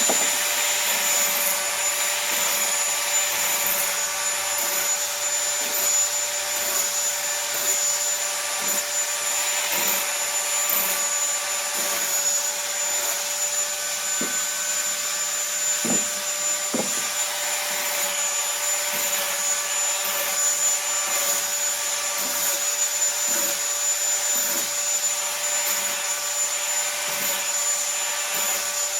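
Handheld electric power tool running at a steady high-pitched whine while it works pallet wood, with irregular light knocks and scrapes as it bears on the wood.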